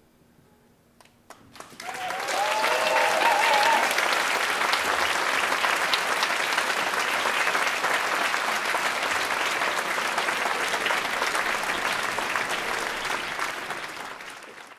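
Theatre audience applauding, breaking out about two seconds in after a moment of near silence, with a few cheers just after it starts. The clapping then goes on steadily and fades out at the very end.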